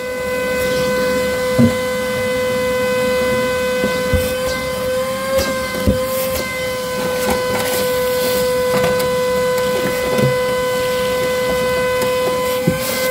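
Wet/dry shop vacuum running steadily with a high motor whine and rushing air, sucking up water in a flood-damaged car. A few scattered knocks and taps sound over it.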